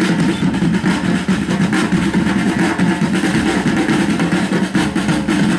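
Loud show music from the sound system, heavily distorted on the recording: a dense, steady low drone with many sharp beats.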